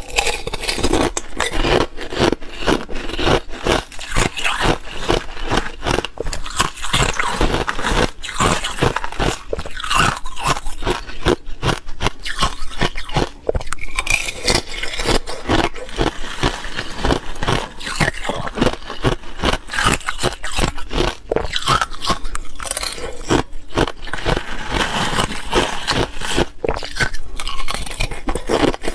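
Thin, brittle ice being bitten and crunched in the mouth, a fast, dense crackle of breaking ice throughout, along with a metal spoon scraping ice shards off the block.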